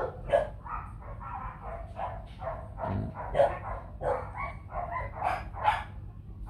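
Dogs barking in a steady run of short barks, roughly three a second.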